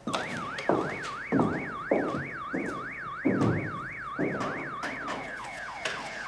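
Car alarm siren wailing, its tone sweeping up and down about three times a second, then switching about five seconds in to a fast repeated falling chirp. Irregular low thuds sound beneath it.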